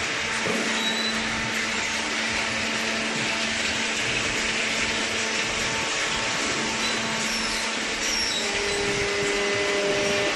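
Horizontal waste paper baler machine running: a steady mechanical whirring drone with a faint hum, and a slightly higher tone coming in near the end.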